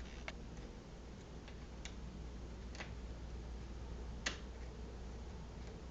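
Lock pick working the pin tumblers of a Defiant deadbolt, single-pin picking: a few sparse, sharp metallic clicks as pins are pushed and set, the loudest about four seconds in. A steady low hum runs underneath.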